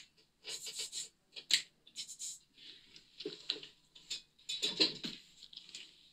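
A cat batting and grabbing at a boot: irregular short scratches, taps and rustles of claws and paws on the boot.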